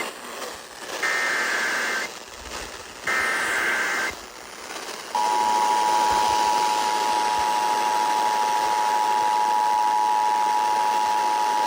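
Emergency Alert System broadcast tones: two roughly one-second bursts of the SAME digital header's warbling data tones, then about five seconds in the steady two-tone EAS attention signal starts and holds, over a constant radio hiss.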